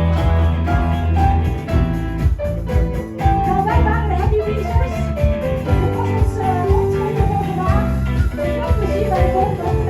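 A live band playing a song, with a steady bass line under held notes and a melody that wavers and bends in pitch from about four seconds in.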